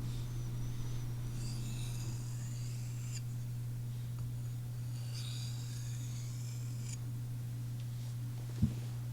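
Sebenza MagnaCut knife edge drawn across a fine sharpening stone in two slow scratchy passes of about two seconds each. A steady low hum, which the sharpener calls the hard drive sound, runs underneath. There is a single soft low knock near the end.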